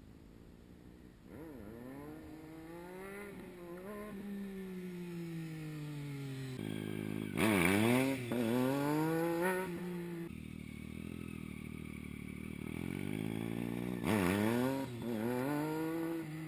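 Triumph Street Triple 675's inline three-cylinder engine revving as the bike is ridden around, its pitch rising and falling again and again. Two loud, sharp revs stand out, about seven and a half seconds in and again about fourteen seconds in.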